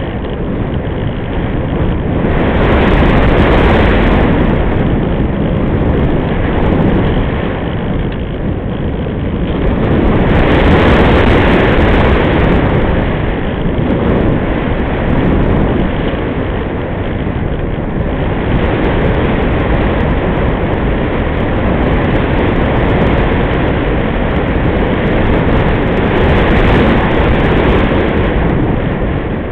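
Wind rushing over the microphone of an RC glider's onboard camera in flight: a loud, steady airflow rush that swells louder a few times as the model turns and changes speed.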